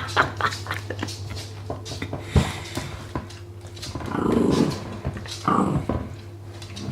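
Small dog working at a giant dog chew, with repeated clicking and knocking, and a low growl about four seconds in.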